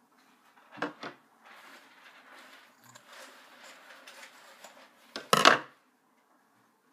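Fabric rustling as it is handled and cut with scissors, with a couple of clicks about a second in and a louder knock about five seconds in.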